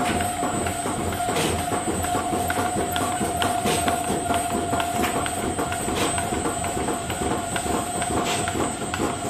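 Automatic roll-fed die-cutting machine running: a fast, continuous mechanical clatter of many small clicks over a steady whine.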